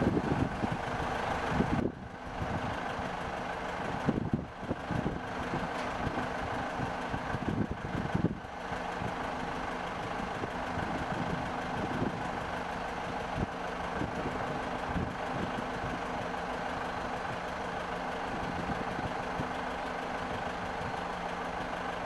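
A steady engine drone like heavy machinery idling, with a few brief dips in the first eight seconds.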